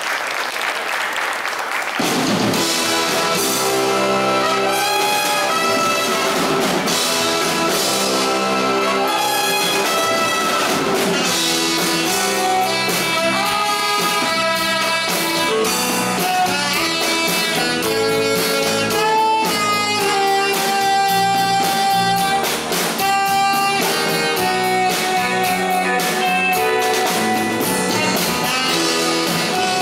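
Live brass band with trumpets, a sousaphone and a drum kit, starting a number about two seconds in as the applause dies away.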